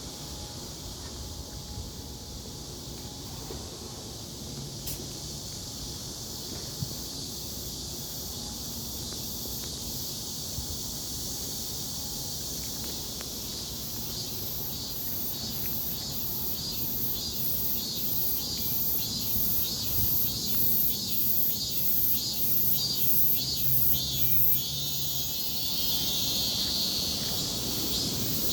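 Insects chirping outdoors: a steady high-pitched buzz, joined about halfway through by a rhythmic high chirping of roughly two pulses a second that grows louder.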